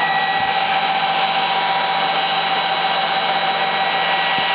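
Computer case fans of a running desktop server whirring steadily, a loud rushing of air with several high, steady whines on top.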